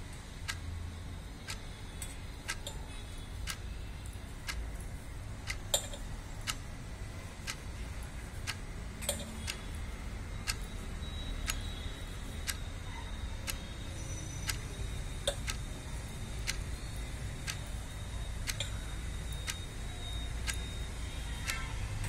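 Regular, evenly spaced ticking, a little faster than one tick a second, over a low steady rumble.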